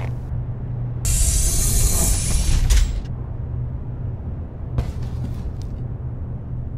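A loud, even hiss of gas venting from the rocket, starting about a second in and lasting about two seconds, over a steady low drone of background music. A couple of soft clicks follow later.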